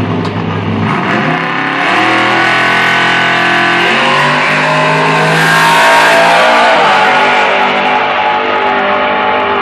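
Built 1969 Chevrolet Camaro drag car's engine held at revs on the starting line, then launching about four seconds in and accelerating hard down the drag strip, loudest soon after the launch.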